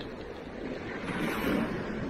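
Sea waves surging and breaking against a rocky shoreline, with wind on the microphone; the wash swells up about a second in.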